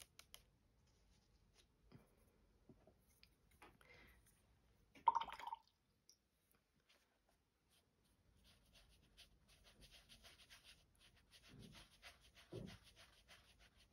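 Mostly near silence, then a paintbrush working water into a soft pastel swatch on sketchbook paper: faint, quick scratchy strokes through the second half, with two soft thumps near the end. One brief louder sound about five seconds in.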